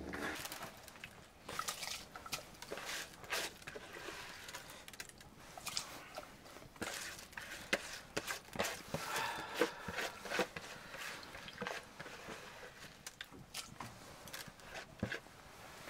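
Hands working wet rice grains in a plastic bowl: irregular small clicks and brief rustles.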